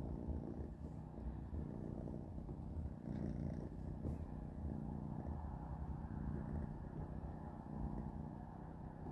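A kitten purring: a low, continuous rumble that swells and eases in roughly one-second stretches with its breathing.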